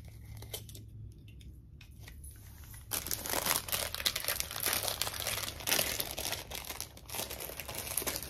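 Thin plastic packaging bag crinkling as it is handled and torn open. It starts about three seconds in after a few light clicks, then goes on as dense crackling.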